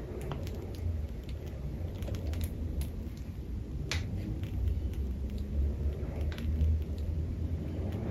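Plastic piping bag crinkling as icing rosettes are piped, heard as scattered small clicks over a steady low rumble.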